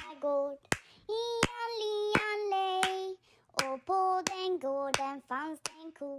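A high voice singing a children's song melody, with sharp hand claps on the beat, roughly one every three-quarters of a second.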